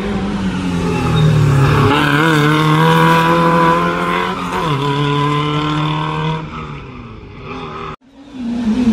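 Rally car engine running hard at high revs, its note stepping down in pitch about two seconds in and again about five seconds in, then fading. About eight seconds in the sound cuts out abruptly and another rally car's engine rises.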